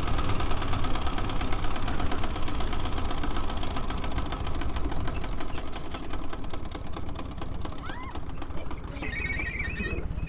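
Vintage pre-1919 motorcycle engine running, a fast, even string of firing beats that grows a little quieter over the last few seconds.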